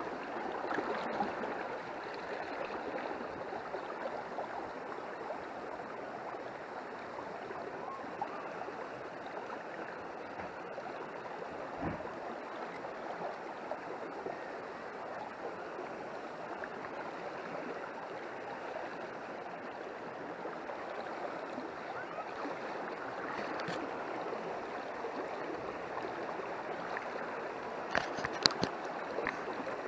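Small countryside stream running steadily over its bed, the flow still up after heavy rain. A low thump about twelve seconds in and a few sharp clicks near the end.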